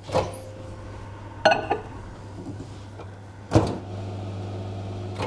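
Microwave oven running with a steady electrical hum, with sharp clicks near the start and twice more, the hum growing louder after the last click and stopping near the end.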